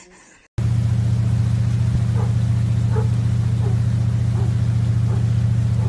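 A loud, steady low drone starts abruptly about half a second in and holds level throughout, with faint short higher sounds every second or so over it.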